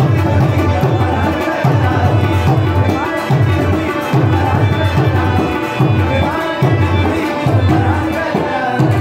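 Live ensemble music: a harmonium and a plucked string instrument play a melody over tabla, whose deep bass stroke lands in a steady beat about every 0.8 seconds.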